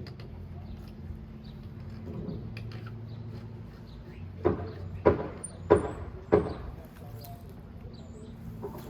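Four hollow knocks, evenly spaced about two-thirds of a second apart, over a steady low hum.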